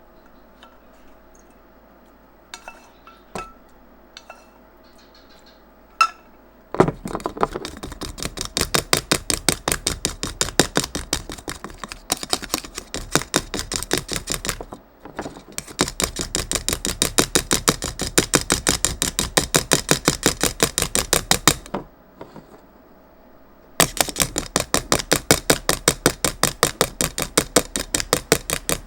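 Dalgona coffee mixture of instant coffee, sugar and water being whipped by hand, the utensil clinking rapidly and evenly against a glass, several strokes a second. A few light clinks come first, then whipping starts about seven seconds in and runs in three spells with short pauses.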